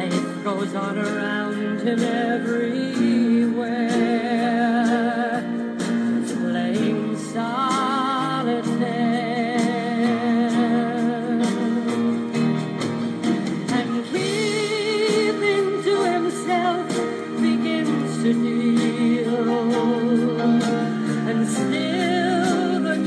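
Background music: a song with a wavering melody line over steady accompaniment.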